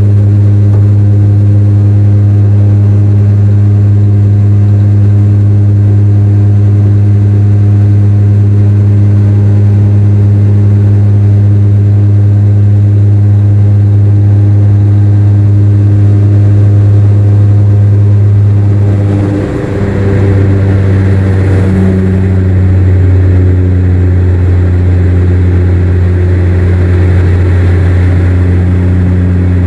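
Cabin drone of a Dash 8 Q400 turboprop in its climb after takeoff: the steady low hum of the PW150A engines' six-blade propellers. About two-thirds through, after a brief dip in loudness and a short rush of hiss, the hum steps down to a lower pitch as the propellers are slowed from takeoff speed to climb speed.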